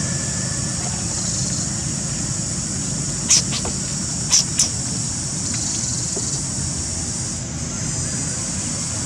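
Forest ambience: a steady high insect drone over a low rumble, with three short sharp high sounds near the middle.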